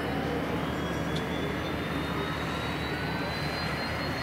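Pilatus PC-12/45's single PT6A turboprop engine and propeller running hard on the takeoff roll: a steady, dense engine noise with a thin turbine whine that climbs slowly in pitch.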